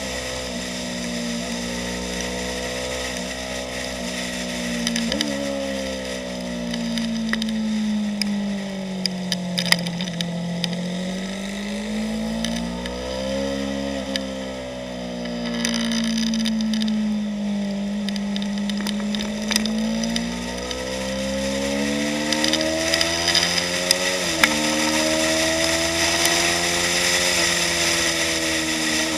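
2015 Yamaha YZF-R3's parallel-twin engine running under load on a race track, with wind rush over the bike. The engine pitch sweeps slowly down and up again several times, and jumps suddenly upward twice, about five seconds in and again about five seconds before the end.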